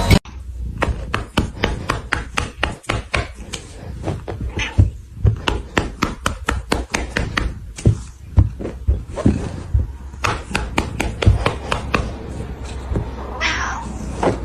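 Repeated knocks and taps throughout, with a cat meowing once near the end.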